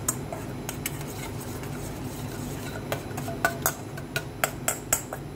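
Metal spoon stirring gelatin into milk in a stainless steel bowl, clinking against the sides in irregular clicks that come faster in the second half, over a steady low hum.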